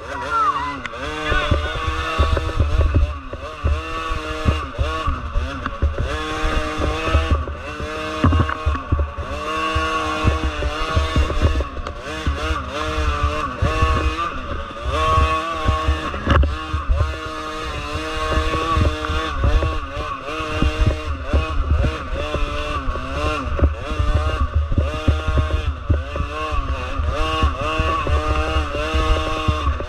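Small 50cc dirt-bike engines revving up and down over and over, with several engine notes overlapping at times.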